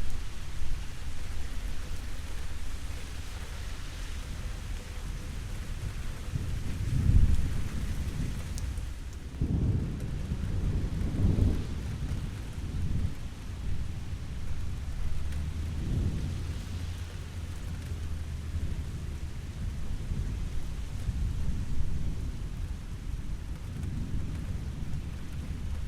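Steady rain with thunder rumbling low several times, the strongest rolls about seven seconds in and again from about ten to twelve seconds.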